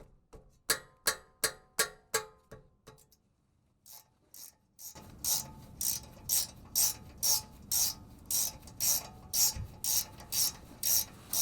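Ratcheting box-end wrench clicking while a 12 mm bolt is loosened. A few quick clicks come first, then a short pause, then a steady run of clicks about two a second.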